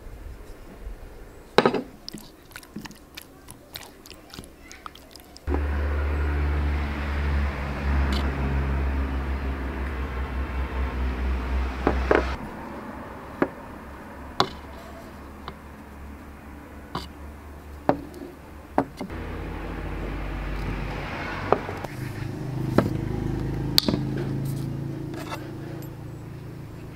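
A metal spoon clinks and taps against bowls as seasonings are spooned onto raw chicken pieces, sharp clicks scattered throughout. Under them, a steady low mechanical hum comes in abruptly about five seconds in, stops about halfway, and returns near the end.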